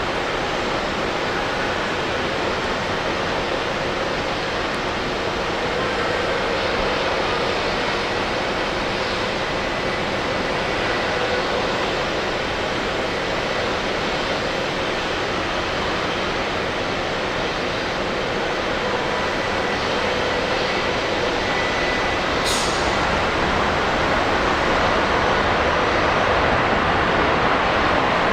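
Airbus A330's Rolls-Royce Trent 772 jet engines on approach: a steady rumble with a faint whine, growing slightly louder toward the end. A single sharp click about 22 seconds in.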